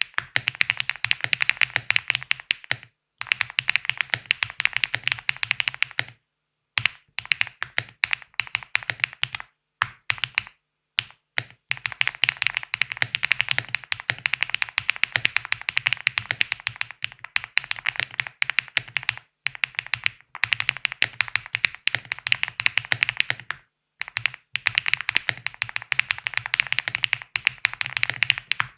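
Steady typing on an Owlab Jelly Evolv mechanical keyboard with Ice Grass switches, PBT keycaps and a foam-dampened FR4 plate on leaf springs: dense runs of quick keystrokes broken by several brief pauses, with the typing stopping near the end.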